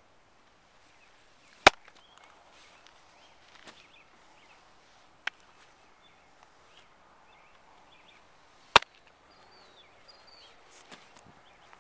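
A baseball smacking into a leather glove: two loud, sharp pops about seven seconds apart, with a softer knock between them. Birds chirp faintly near the end.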